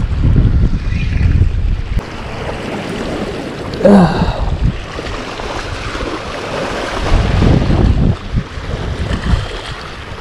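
Sea waves washing and splashing against shoreline rocks, with wind buffeting the microphone heavily for the first two seconds. A short vocal exclamation comes about four seconds in.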